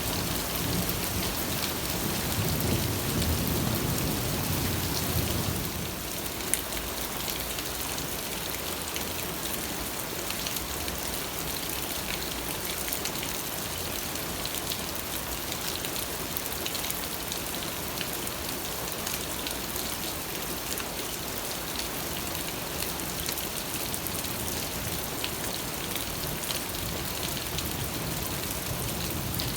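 Steady rainfall, an even hiss of drops falling on surfaces, with a low rumble of thunder during the first five seconds or so. A single sharp drop tick stands out about six seconds in.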